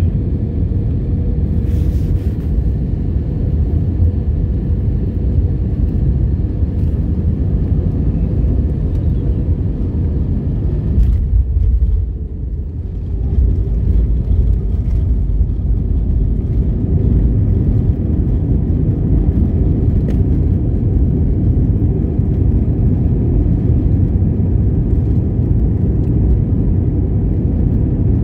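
Jet airliner landing, heard from inside the cabin over the wing: a steady, loud rumble of engines and rushing air with a faint hum on final approach. About twelve seconds in the rumble briefly dips, then comes back louder as the plane rolls down the runway after touchdown.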